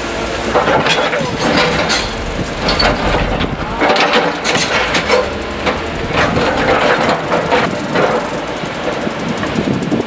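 Caterpillar excavators' diesel engines running on a demolition site, with irregular crashing, scraping and clanking of rubble and metal as the machines work the debris.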